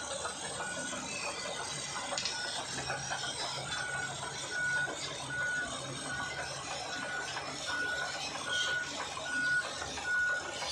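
Shantui SD22 crawler bulldozer working, its steel tracks clanking and rattling over a low engine hum. A reversing alarm beeps at one high pitch, a little under twice a second, with a pause of a few seconds near the start.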